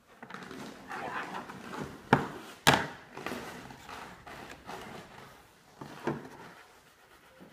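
Handling noise as the drawing sheet and camera are moved: rustling and shuffling, with two sharp knocks a little over two seconds in, the second the loudest, and a smaller knock about six seconds in.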